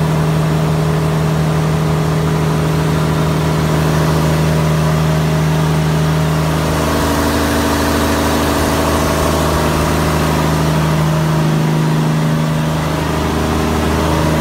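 A fishing boat's inline diesel engine running steadily, heard close up in its engine room, with a slight shift in its tone about seven seconds in.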